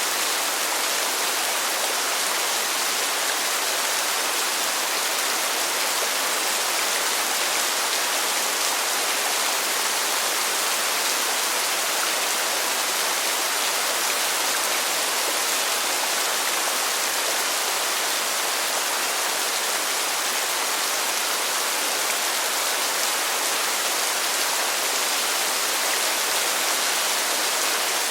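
Heavy pouring rain: a dense, steady hiss with no breaks or individual drops standing out.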